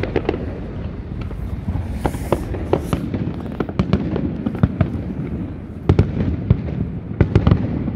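Fireworks display going off: a run of sharp bangs and crackles over a steady low rumble, with the loudest bangs about six seconds in and again near the end.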